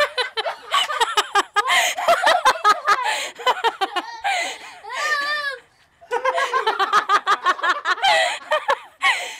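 Hearty laughter in fast, repeated bursts, breaking off briefly just before six seconds in.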